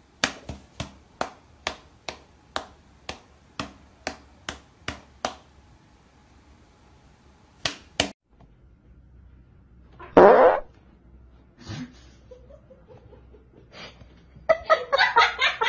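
A cat's paws and a person's hand slapping together in a quick run of about a dozen light pats, roughly two a second, then two more a couple of seconds later. About ten seconds in comes a single loud, short, raspy noise, and brass-like musical notes start near the end.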